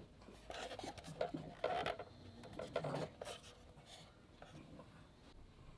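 Hands handling a Funko Pop Hall of Armor plastic display case: fingers rubbing and scraping on it, with small clicks, busiest in the first three and a half seconds and fainter after.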